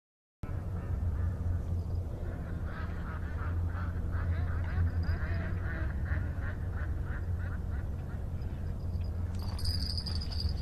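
Ducks quacking in a quick series of short calls, over a steady low rumble.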